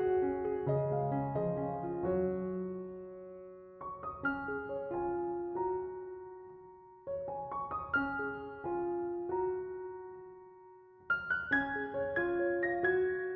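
Soft solo piano music: slow phrases of struck notes and chords that ring and fade, with short pauses between phrases.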